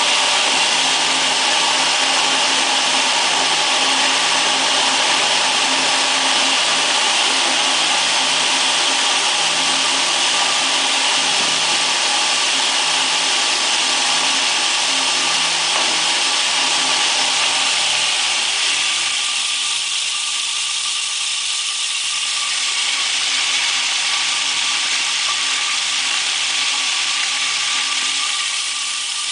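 High-speed drying mixer running: the electric motor's steady hum and whine with a constant hiss of material whirling in the drum. The sound thins out for a few seconds about two-thirds of the way in, then comes back.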